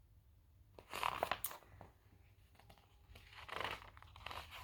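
Paper pages of a large picture book rustling and crinkling as they are handled and turned, in two short spells: about a second in and again near the end.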